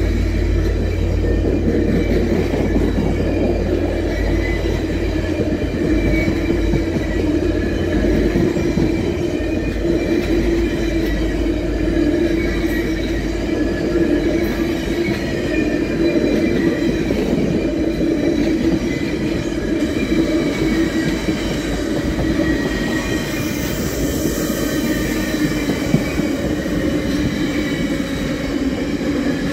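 A long train of stainless-steel passenger cars rolling past at speed: a steady rumble of wheels on rail with a faint high wheel squeal. A deep low rumble is strong at first and dies down after about twelve seconds.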